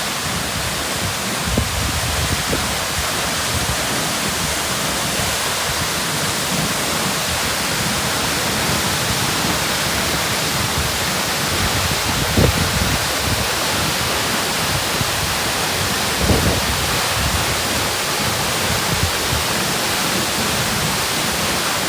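Waterfall crashing with a steady, full rush of falling water, with a few brief low thumps.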